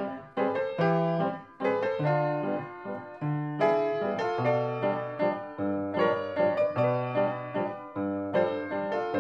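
Background piano music, notes struck in a quick, even rhythm over changing chords.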